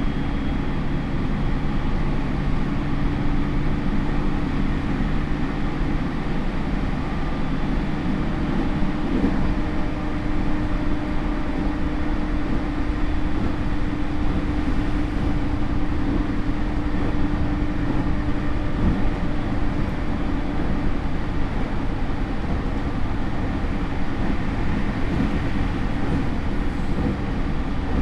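A JR E231 series commuter train's motor car with a Hitachi IGBT inverter, heard from inside the car while running: steady wheel and rail noise with a low motor hum. One of the two hum tones fades out about eight seconds in and the other carries on almost to the end.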